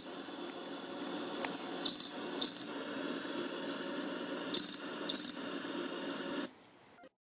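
Crickets sound effect: chirps in pairs every couple of seconds over a steady background hiss, cutting off abruptly near the end. It is the classic 'crickets' gag marking a joke met with silence.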